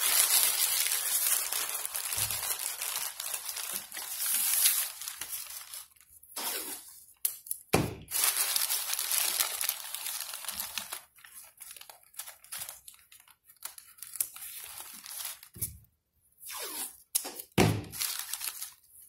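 Newspaper being crumpled into a ball for about six seconds, then painter's tape pulled and torn from the roll and pressed onto the paper, in short bursts of rustling. A couple of dull thumps as the paper and tape are pressed onto the model.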